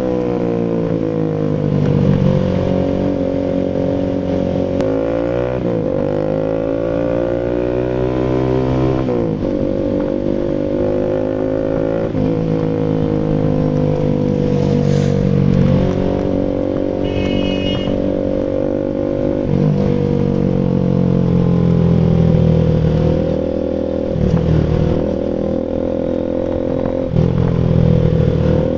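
Bajaj Rouser RS200's single-cylinder engine running through an SC Project full aftermarket exhaust, its revs rising and dropping several times between steadier stretches.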